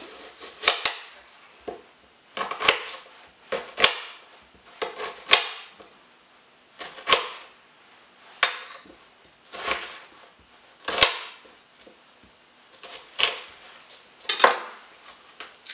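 Kitchen knife cutting a peeled onion into wedges on a chopping board: a series of separate, unhurried cuts, each ending in a sharp knock of the blade on the board, some of them in quick pairs.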